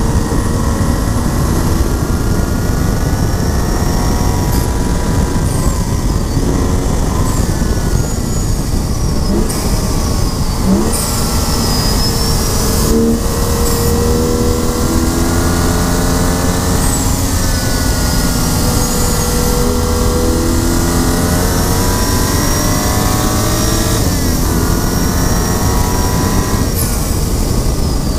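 2011 BMW 135i's turbocharged 3.0-litre inline-six, with aftermarket software and cold-air intake, driven hard at track speed: the engine note climbs and drops again several times as it pulls through the gears and comes off the throttle, over heavy wind and tyre noise.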